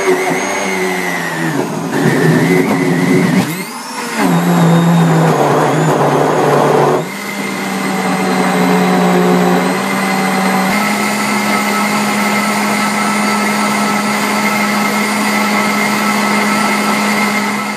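JTC OmniBlend V high-power blender running on a packed jar of wheatgrass, celery, silver beet, frozen banana and kiwifruit. The motor's pitch wavers and dips briefly about four seconds in, then from about seven seconds it runs at a steady, even pitch as the contents turn into a smooth liquid.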